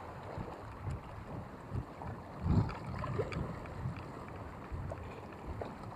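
Wind buffeting the microphone in uneven gusts, the strongest about two and a half seconds in, over choppy sea water lapping.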